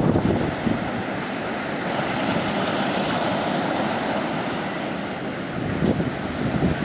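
Mediterranean sea waves breaking and washing onto a sandy beach, a broad hiss that swells through the middle, with wind buffeting the microphone as a low rumble near the start and end.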